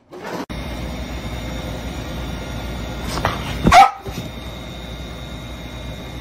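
A dog gives one short, loud bark a little under four seconds in, with a fainter sound just before it, over a steady background hiss.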